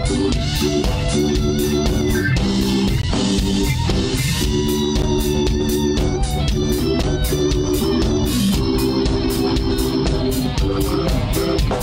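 Live blues band playing: a console organ holds and changes chords over a steady drum beat, with electric guitar.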